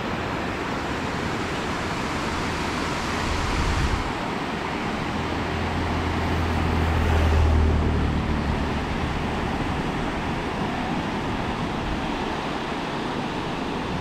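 River water rushing under a bridge: a steady, even rush of flowing water, with a low rumble swelling in about three seconds in and fading out about eight seconds in.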